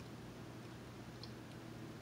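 Faint handling of a glass of iced water lifted to drink through a straw: a soft click about a second in over a steady low room hum.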